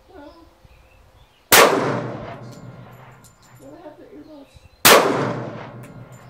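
Two pistol shots from a Springfield Armory Range Officer 1911 in .45 ACP, about three seconds apart, each ringing on in a long decaying echo.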